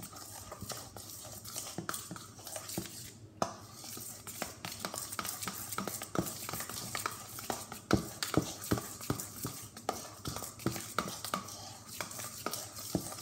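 A spoon stirring a thick glue and shaving-cream slime mixture in a stainless steel mixing bowl, clinking and scraping irregularly against the metal, busier and louder in the second half.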